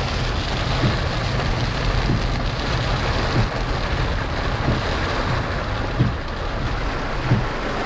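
Steady heavy rain with a car driving on wet road through a thunderstorm downpour. A faint knock repeats about every second and a quarter.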